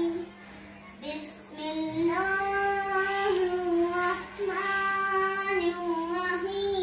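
A child's voice chanting Quranic verses in a melodic singsong with long held notes, after a short pause at the start. A steady low electrical hum runs underneath.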